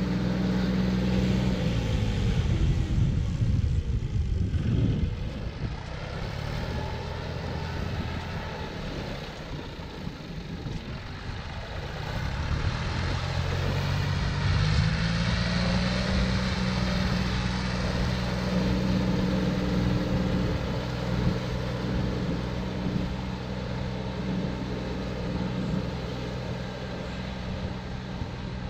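John Deere tractor's diesel engine running steadily under load while plowing a flooded paddy. There is a few seconds of louder low rumble about two to five seconds in. The engine note dips and then climbs about twelve seconds in.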